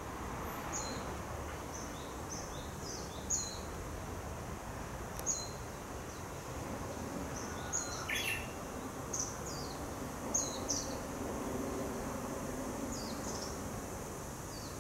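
Forest birdsong: small birds repeat short, high, falling call notes, and about eight seconds in a Japanese bush warbler sings a held note followed by a quick higher phrase, over a steady hiss of outdoor ambience.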